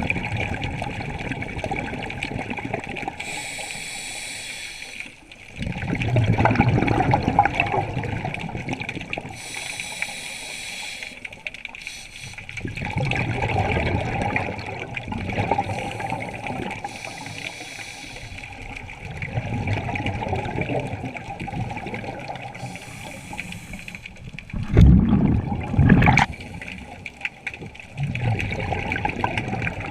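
Scuba diver breathing through a regulator underwater: a short hiss of inhaled air, then a louder burst of exhaled bubbles. The cycle repeats about every six seconds, four times.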